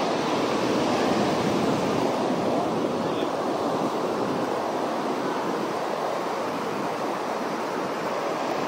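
Ocean surf washing onto the beach, a steady rushing wash that swells slightly about a second in.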